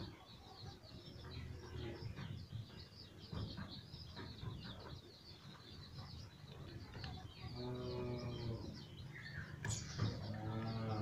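Young chicks peeping continuously in quick, high cheeps, with a deeper drawn-out animal call heard twice in the second half.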